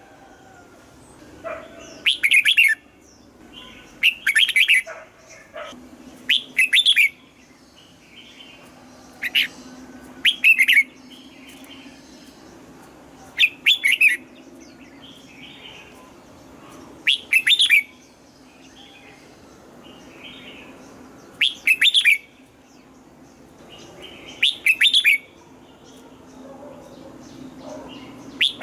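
Red-whiskered bulbul singing, about ten short song phrases spaced two to four seconds apart. A faint steady low hum runs underneath.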